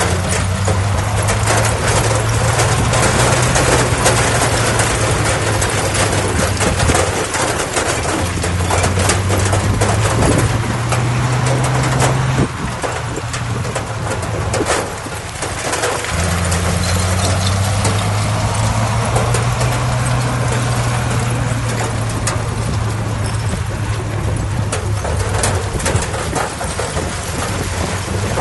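Heavy earthmoving machine's diesel engine running under load with the clatter and rumble of the machine. The engine note rises slightly about ten seconds in, eases off at about twelve seconds, and picks back up around sixteen seconds.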